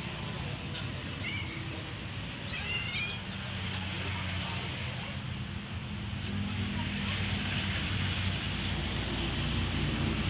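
An engine hum, steady and low, growing louder over the last few seconds, with a few short high chirps about one to three seconds in.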